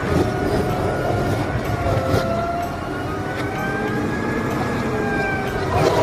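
Automated side-loader garbage truck running, its diesel engine rumbling steadily under a hydraulic whine that slowly rises and falls as the arm lifts a wheeled trash cart and tips it into the hopper. A few knocks from the arm and cart, the loudest near the end.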